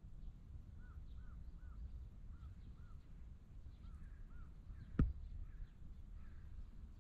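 A bird calling in a run of short, arched notes, about three a second, which stop after about four and a half seconds. There is a sharp knock about five seconds in, over a steady low rumble.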